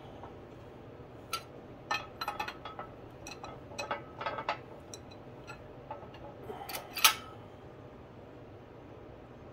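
Irregular clinks and knocks of metal and plastic tooling and the jack handle being handled on a hydraulic bottle-jack shop press, the loudest knock about seven seconds in, over a steady low hum.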